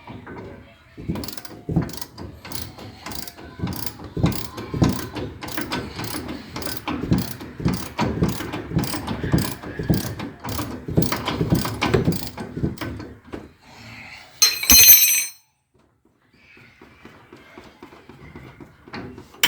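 Hand socket ratchet clicking through stroke after stroke, loosening the upper control arm bolts on a truck's front suspension. Near the end comes a brief loud metallic clatter.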